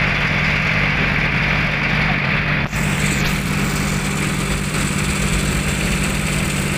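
Machinery running steadily with a low, even hum, unbroken apart from a brief dip about two and a half seconds in.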